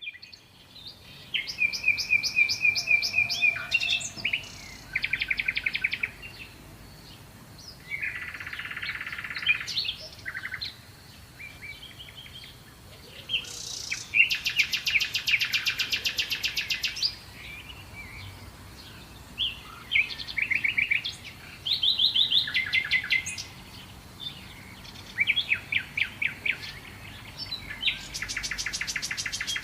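A songbird singing: a run of varied phrases of rapid trills and chirps, each lasting one to three seconds, with short pauses between them.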